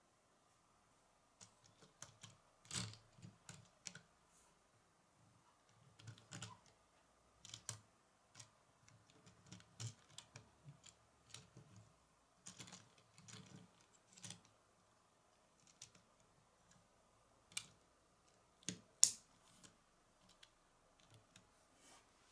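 Faint, irregular clicks and light knocks of a small plastic Lego car being handled, turned and set down on a wooden tabletop.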